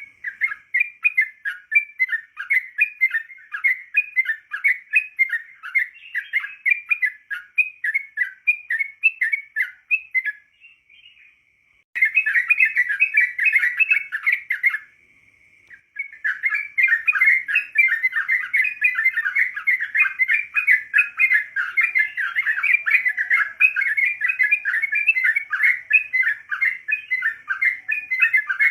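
Yellow-vented bulbul (trucukan) singing a fast, bubbly run of repeated chirps, breaking off briefly twice.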